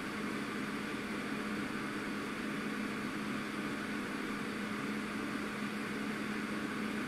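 Mechanical ventilation (VMC) extractor unit running at its high speed, its turbine spinning fast: a steady rush of drawn-in air over a steady low motor hum.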